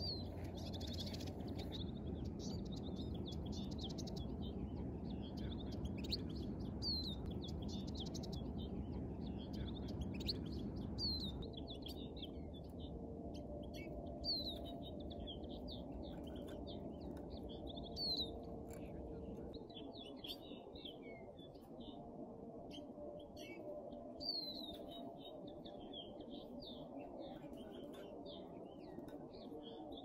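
Small finches calling and twittering: short, sharp falling chirps repeated many times throughout, with a few quick trills, over a low background rumble that eases off partway through.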